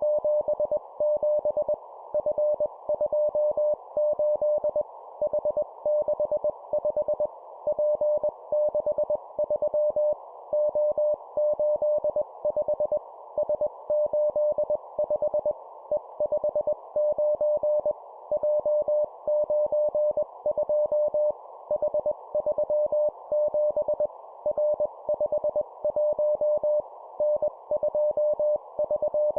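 Morse code sent at 20 words per minute as a single steady tone keyed on and off in dots and dashes, in short three-character groups of one letter and two numbers with brief pauses between the groups. A steady band of hiss runs underneath.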